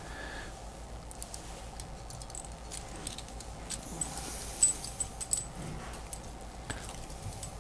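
Small metal parts clinking and clicking as a tiny screw is picked out and hand-started through a metal high-voltage shield into an aluminium bracket. A few light ticks at first, then a short run of sharper clicks with brief high metallic pings about halfway through.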